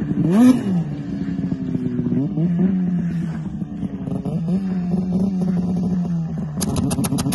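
Snowmobile engine idling close by, blipped up in revs several times, each blip rising and falling quickly in pitch. Near the end comes a fast rattle of about seven clicks a second.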